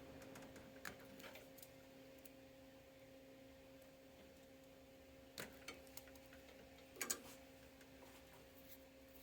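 Near silence: a faint steady electrical hum, with a few faint light clicks and taps scattered through it.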